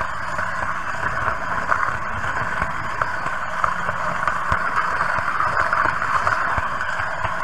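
H0-scale Märklin model train running along the track: a steady running noise of motor and wheels, with light clicks scattered through it.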